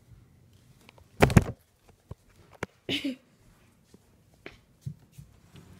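Handling noises as plush toys are moved by hand close to the phone: a loud thump about a second in, a few sharp clicks, and small knocks later. A short vocal sound comes near the middle.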